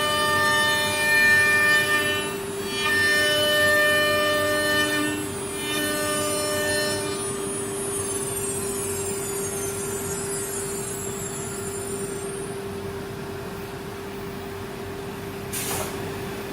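CNC router spindle whining with a steady underlying tone, its pitch stepping for several seconds. From about halfway through, its high whine glides steadily downward as the spindle spins down. A short burst of hiss comes near the end.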